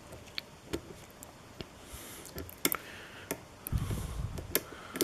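Irregular small sharp clicks of a lock pick working the security pins of a pin-tumbler lock under tension, with a brief low rumble of handling a little before the end.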